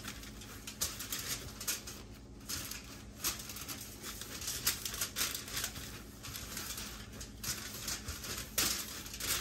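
Parchment paper crinkling and rustling in short, irregular bursts as a meatloaf roll is wrapped up in it, over a steady low hum.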